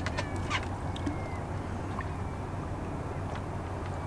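A few faint short bird calls over a steady low hum, with a couple of light clicks.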